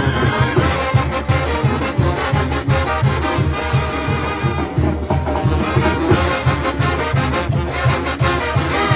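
Oaxacan brass band playing live: sousaphones pumping a steady bass beat under trumpets and trombones.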